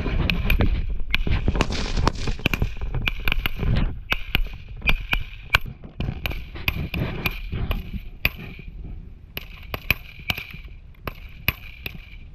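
Rifle fire from several Marines' M16-pattern 5.56 mm rifles in a fire-and-maneuver drill: irregular single shots, several a second, some close and some farther off, denser and louder in the first four seconds.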